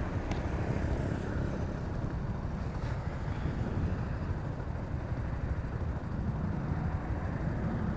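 Motorcycle engine running while riding, with a steady rumble of engine and road noise and wind rushing over the microphone.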